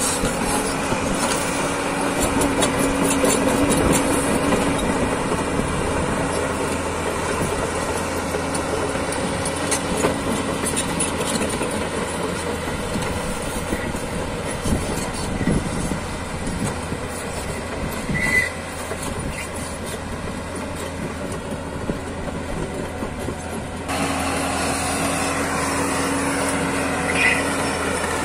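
JCB JS205 tracked excavator running steadily as it digs and travels, its diesel engine and hydraulics working, with occasional metallic clanks and a couple of short squeals from the tracks and undercarriage.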